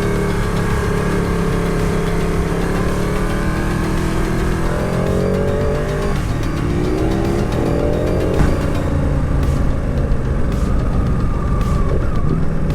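Motorcycle engine under way, revs climbing twice with a gear change between, then settling lower and steady about eight seconds in, over a heavy low rumble of wind and road noise.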